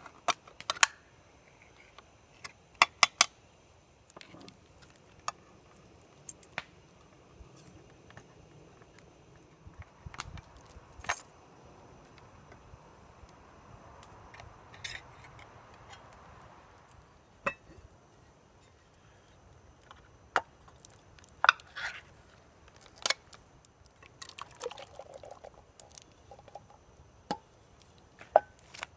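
Sharp metal clicks and clinks of a small military-style can opener working around the rims of steel food cans, with cans knocking on the wooden table. Canned kidney beans are poured into a cast iron Dutch oven.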